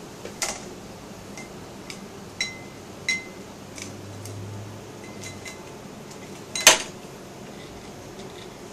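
Several light clicks and clinks of small hard objects being handled on a desk, some with a brief glassy ring; the loudest clink comes about two-thirds of the way through.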